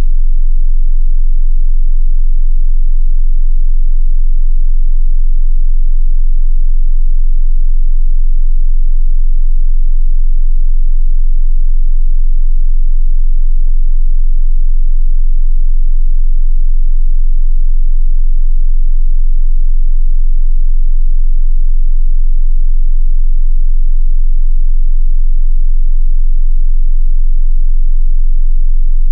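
A steady 22 Hz sine-wave test tone, a deep continuous bass hum held at one pitch and level, for testing subwoofers.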